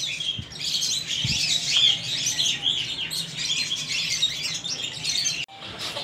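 Many small parrots chirping and chattering together in a dense, continuous mix of high calls. The sound briefly cuts out just before the end.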